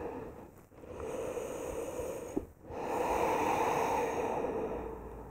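A woman breathing slowly and deeply while resting in child's pose: three long breaths, the last the longest and loudest.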